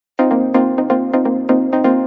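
Electronic music with quick, evenly repeated synth notes, starting a moment after the beginning.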